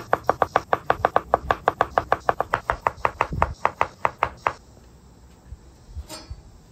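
Chef's knife rapidly slicing smoked pork belly on a wooden cutting board, each stroke knocking on the board, about six strokes a second. The slicing stops about four and a half seconds in, and one faint knock follows near the end.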